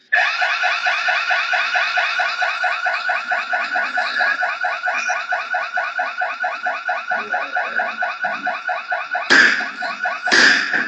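An electronic security alarm starts abruptly and sounds continuously in fast, even pulses. Near the end come two loud smashes as the glass display counter is struck.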